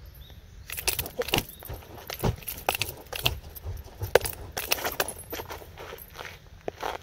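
A pair of chain-linked nunchaku being swung and twirled, their metal chains jangling and rattling in quick, irregular clicks.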